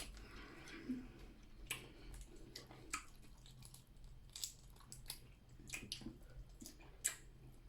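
Faint close-up eating sounds: chewing with scattered sharp mouth clicks and smacks every second or so.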